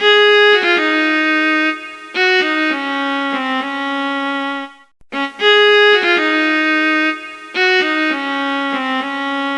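Instrumental outro music: a short melody of a few held notes, played through once and then repeated after a brief break about five seconds in.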